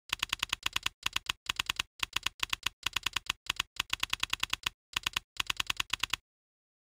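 Typing sound effect: rapid, even key clicks, about eight a second, in short runs broken by brief pauses, stopping about six seconds in.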